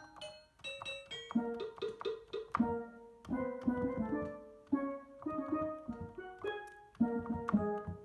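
Akai MPK Mini Play's built-in steel drum preset played from its mini keys: a series of struck, bell-like pitched notes in short runs, each ringing briefly and fading.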